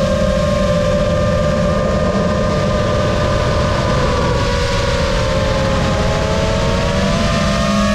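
Lumenier QAV-S JB 5-inch FPV quad in flight, its brushless motors and propellers giving a steady multi-toned whine. The pitch dips and climbs back about five seconds in as the throttle changes.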